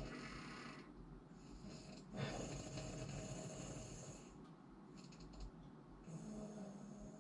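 A sleeping person snoring: the relaxed soft palate and uvula vibrate in a partly blocked airway. The loudest snore starts about two seconds in and lasts about two seconds. A shorter snore with a steady low buzz comes near the end.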